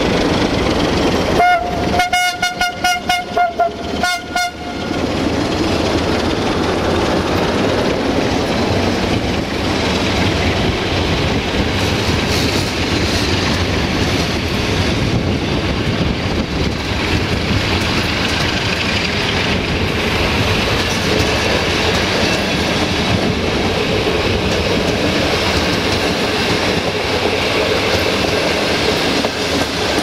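Air horn of the train's Electroputere 060-DA (LDE2100) diesel-electric locomotives sounding from about a second and a half in, one held note broken into a quick string of short blasts lasting about three seconds. Then the passenger coaches roll past with a steady rumble and wheel clatter over the rail joints.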